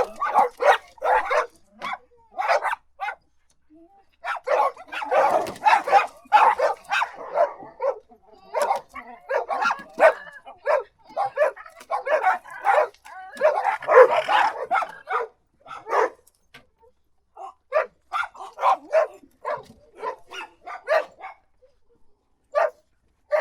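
Dog barking in rapid runs of short barks, broken by brief pauses between bouts.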